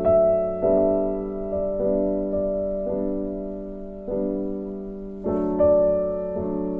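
Background piano music: slow chords and single notes struck about once a second and left to ring and fade.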